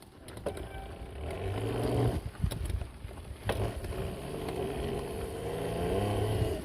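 Electric pit bike with an upgraded 5000 W hub motor riding, its motor whine rising and falling in pitch as the speed changes, with a few sharp knocks.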